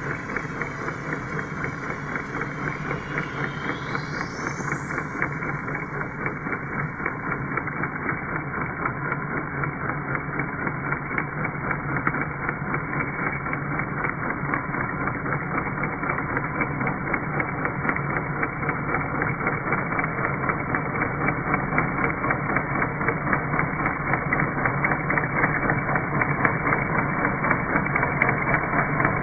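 Motor and spinning brush of a garden-railway track sweeper whirring steadily as it sweeps grass clippings off the rails, slowly growing louder as it comes closer.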